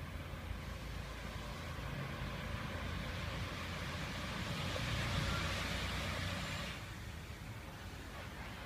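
A vehicle passing by: a rushing hiss that swells, peaks about five seconds in and fades away near seven seconds, over a steady low hum.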